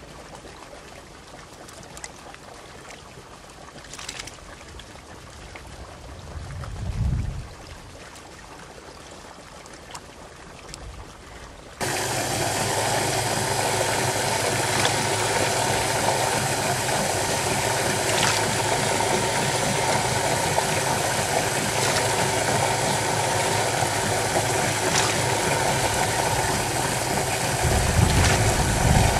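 Faint water sloshing at first. About twelve seconds in, a steady idling engine starts abruptly, along with water bubbling and splashing in an aerated fish-hauling tank as handfuls of small fish are dropped in.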